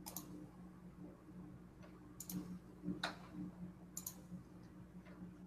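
A few faint, sharp clicks at irregular intervals, about four in all, over a faint steady low electrical hum.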